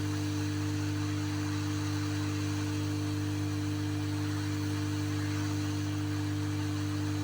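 Steady electrical mains hum over a faint hiss, even and unchanging throughout.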